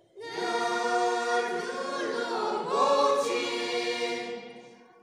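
A mixed group of young men's and women's voices singing a folk song together, unaccompanied, in long held notes. The phrase begins abruptly just after the start, slides in pitch midway, and fades away near the end.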